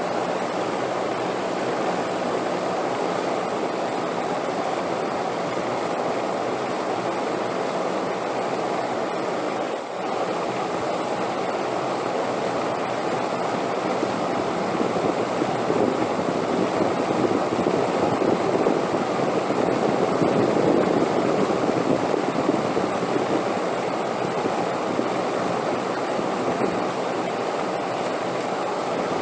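Wind blowing steadily as a continuous rushing noise, dipping briefly about ten seconds in and then swelling louder in a long gust past the middle.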